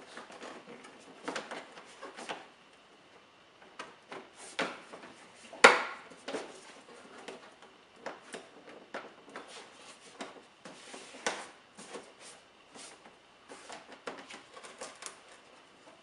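Fiberglass race fairing panel being handled and pressed into place on the motorcycle: irregular light clicks and knocks, with one sharp, loud snap about six seconds in.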